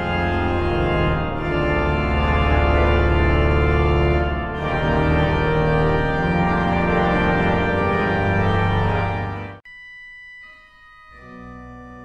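Large Klais pipe organ playing a loud, sustained full chord with deep pedal bass, which cuts off suddenly near the end. A few soft, high held notes follow, joined by quieter lower held notes.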